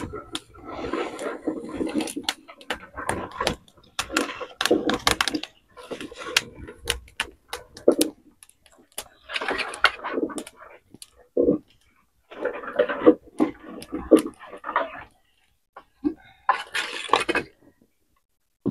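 Dry grass and twigs rustling and crackling as they are pushed into a small open wood fire and catch, in uneven bursts of sharp ticks with short silent pauses between.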